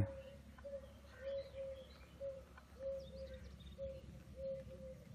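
A bird calling in the background: short, low, flat notes repeating irregularly about every half second.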